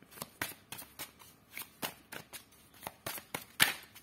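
A deck of tarot cards being shuffled by hand: a string of irregular soft clicks and slaps of cards against each other, with one louder slap about three and a half seconds in.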